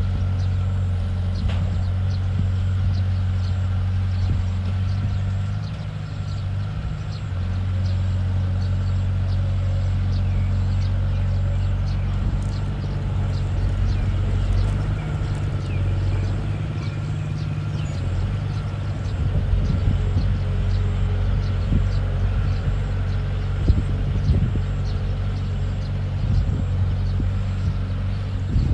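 Bulldozer's diesel engine running hard and steady while it pushes down a tree, with scattered cracks and snaps and irregular heavy thuds in the last third.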